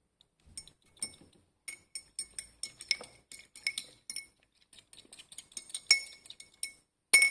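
A small silver piece being dipped into a drinking glass of silver-cleaning dip, tapping against the glass again and again in short, ringing clinks at an irregular pace. The loudest clinks come about six seconds in and just before the end.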